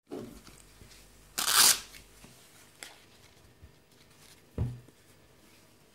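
Hands handling a wrist blood pressure monitor and its fabric cuff: a short, loud rasping burst about a second and a half in, a few light clicks, and a dull thump about four and a half seconds in as the cuff goes onto the wrist.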